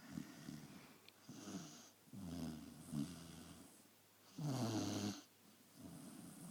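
A small pet snoring in its sleep: a run of snoring breaths about a second apart, the loudest one a little past the middle.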